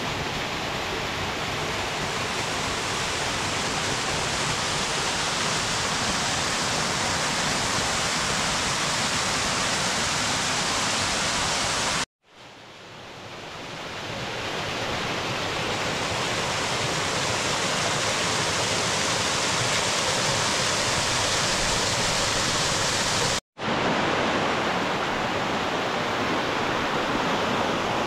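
Small mountain-stream waterfalls pouring over rock: a steady rush of water. The sound cuts to silence for a moment twice, and after the first break it fades back in over a couple of seconds.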